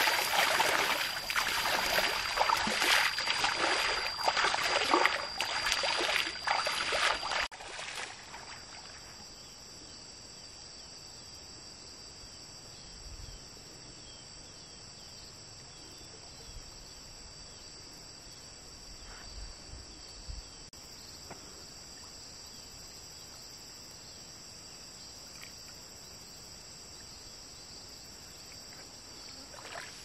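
Legs wading through pond water, splashing steadily for about the first seven seconds, then stopping abruptly. Behind it and on afterwards, insects keep up a steady high-pitched drone over quiet water.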